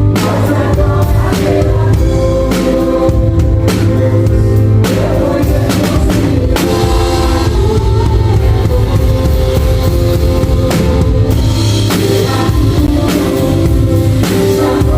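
A drum kit played along to a song with singing. Kick and snare hits land steadily over sustained instruments and vocals.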